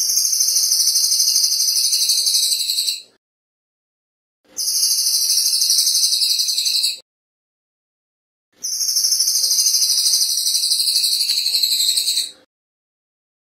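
Crested jay (cililin) calling: a fast, high, rattling trill given in three bursts of about three seconds each, with short pauses between.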